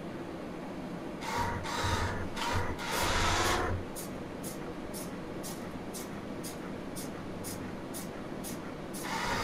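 Small Arduino robot's drive motors whirring in four short starts and stops, about a second in, as it turns. Then faint regular ticks, about two and a half a second, and the motors whir again near the end.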